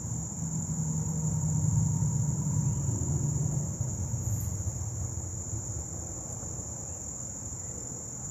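Steady high-pitched chorus of insects throughout, with a low rumble that swells in during the first half, loudest about two seconds in, then fades.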